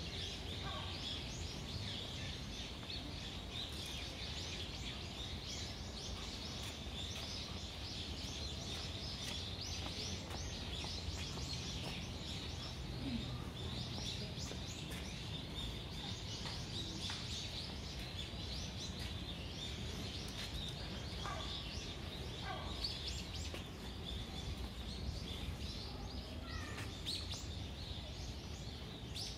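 Many birds chirping in the trees: a dense, continuous chatter of short high calls, with a few lower calls now and then, over a steady low background rumble.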